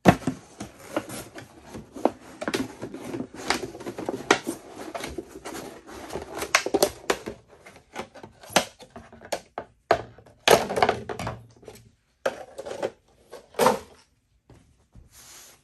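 Empty plastic milk jug being cut open with a large cleaver-style folding knife: dense crackling, scraping and clicking of the plastic for about the first eight seconds. Then come a few separate louder crackles and knocks as the cut jug is pulled apart and handled.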